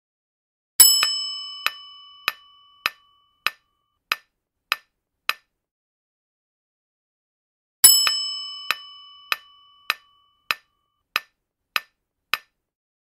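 Quiz-game sound effects: a bright bell ding followed by a run of clock-like countdown ticks, a little under two a second. The pattern comes twice, with a silent gap of about two seconds between the runs.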